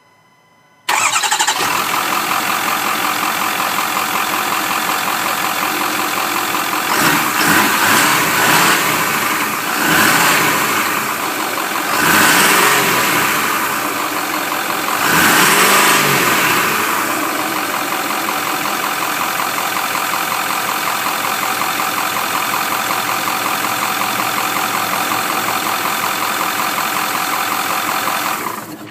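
Car engine starting about a second in, then revved in four or five short swells before settling to a steady run and dropping away near the end. This is the sound the title questions as a bad turbo.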